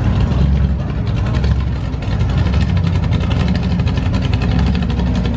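A vehicle engine runs close by with a deep, steady rumble. A fast, even pulsing from its exhaust grows stronger from about halfway through.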